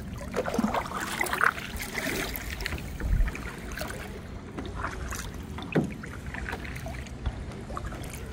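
Kayak paddle strokes in river water: a few irregular splashes as the blades dip and pull, over a steady low water-and-air hiss.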